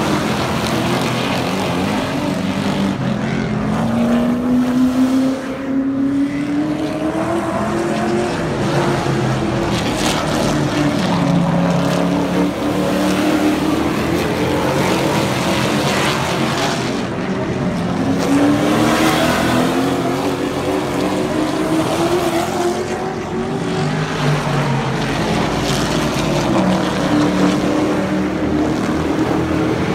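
Super truck race engines running laps on a short oval, more than one truck in turn. The engine note climbs repeatedly as the trucks accelerate and drops as they lift for the turns, with clear rising pulls about four seconds in and again just before the twenty-second mark.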